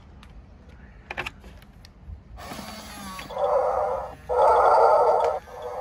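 WowWee Animal Tronics hippo toy running: a click about a second in, then its motor and gears whir as it moves. From about three seconds in it plays two loud hippo calls through its small speaker, each about a second long.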